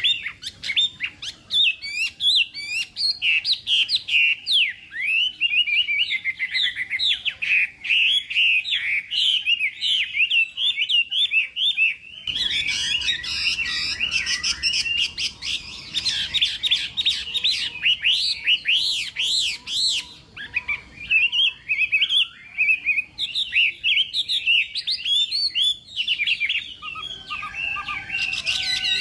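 Chinese hwamei singing a long, fast run of varied whistled phrases that swoop up and down, with hardly a pause. About twelve seconds in, the background hiss grows louder.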